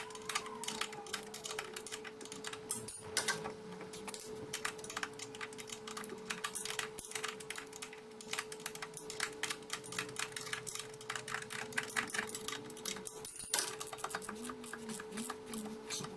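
Fast, dense clicking of a hand ratchet tightening the gearbox mount bolts, sped up, over a faint steady hum.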